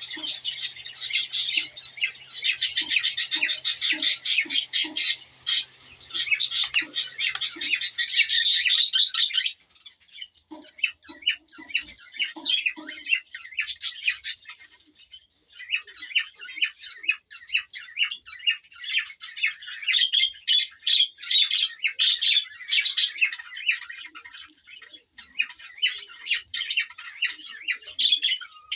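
Male cockatiel singing its courtship song to a female: a rapid, chattering warble of whistled notes, unbroken for the first nine seconds or so, then going on in shorter bursts with brief pauses.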